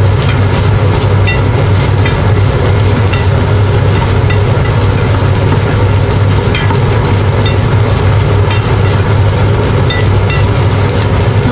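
Ground meat and green beans frying in a pan while a wooden spatula stirs them, with light ticks of the spatula against the pan, over a loud steady mechanical hum.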